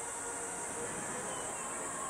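Steady outdoor night ambience: a constant high-pitched hiss over a low, even background murmur, with faint distant tones underneath.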